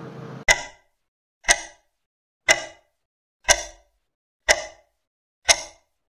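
Quiz countdown-timer sound effect: a short, sharp tick once a second, six in all, each with a brief ring.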